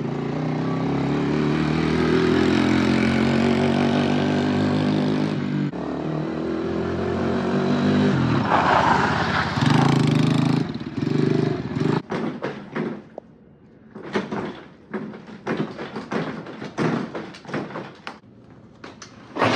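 Chinese X-Pro 125 ATV's small single-cylinder four-stroke engine running under throttle, its pitch rising as it accelerates. In the second half it breaks into a series of short, uneven revs and bursts.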